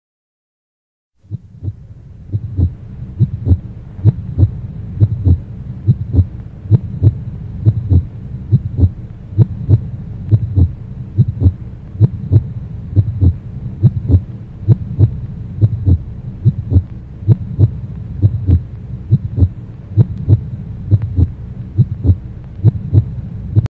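Heartbeat sound effect: steady low double thumps, a little over one beat a second, over a low hum, starting about a second in.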